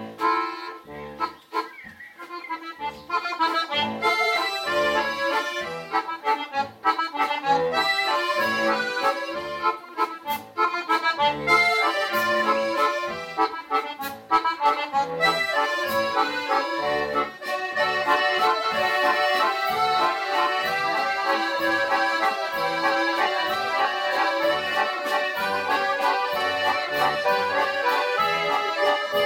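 Accordion orchestra playing a piece together: many accordions in chords and melody over a steady, evenly pulsing bass. It strikes up after a moment's silence.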